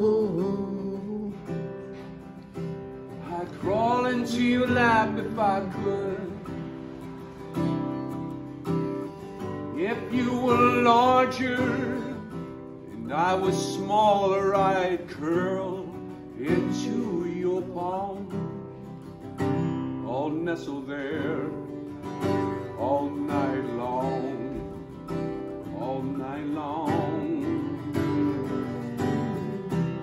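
Live music: a man singing slow, held notes with vibrato over a strummed small acoustic string instrument.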